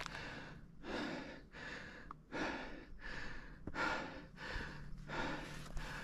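A person breathing hard and fast through the mouth, quick heavy in-and-out breaths coming nearly two a second, as from exertion.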